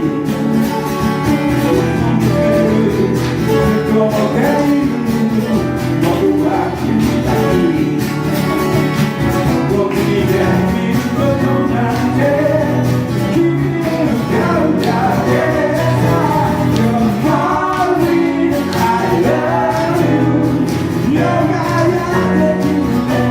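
Live band performance: a singer over guitar accompaniment.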